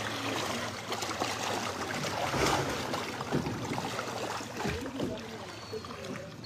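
Floodwater sloshing and splashing with steady movement through it.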